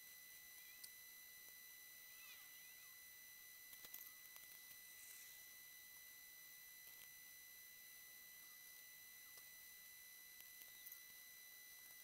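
Near silence with a faint, steady high-pitched electronic whine made of several fixed tones, broken by a few faint clicks and short chirps.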